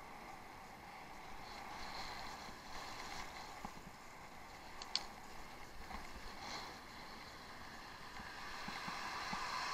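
Steady rush of wind and tyre noise from a bicycle ridden off-road, picked up by a head-mounted action camera, with one sharp click about five seconds in and the rush growing louder near the end.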